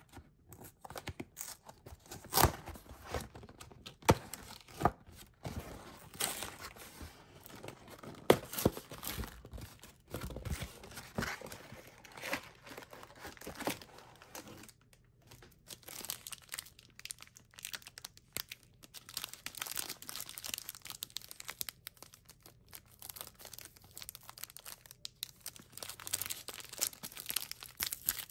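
Hands handling and opening a cardboard cereal-bar box, with sharp crackles and snaps that are loudest in the first half. Then the crinkling and tearing of a foil-lined cereal bar wrapper being pulled open near the end.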